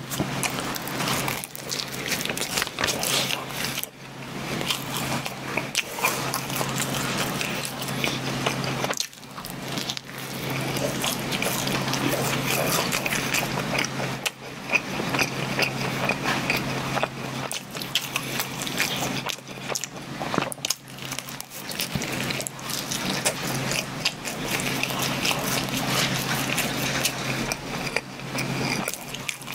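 Close-miked biting and chewing of a flaky sausage pastry, with many small crisp crackles from the crust throughout.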